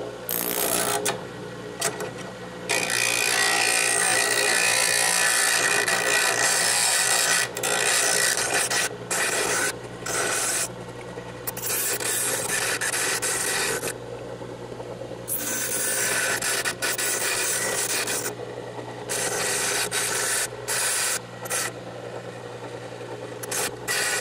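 Bench grinder running with a steady hum while short steel pipe spacers are pressed against the wheel again and again, each pass a loud grinding rasp that starts and stops. The sharp cut edges of the pipe are being ground off.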